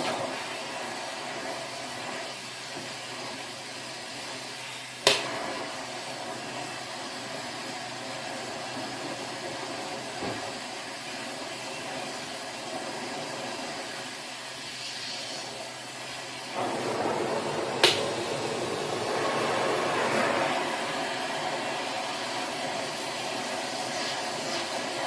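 Torch flame burning with a steady hiss while it heats the vise's steel parts to free seized threads. The hiss grows louder and fuller about two-thirds of the way in. Two sharp metallic clicks come about five seconds in and again near eighteen seconds.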